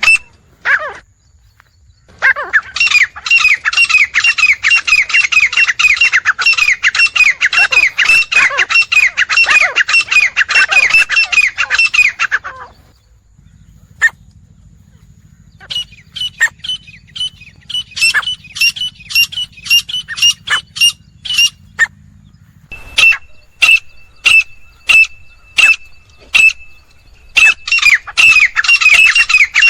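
Grey francolins calling: fast, loud runs of repeated harsh notes, breaking off after about ten seconds into scattered calls over a low hum, then starting up again near the end.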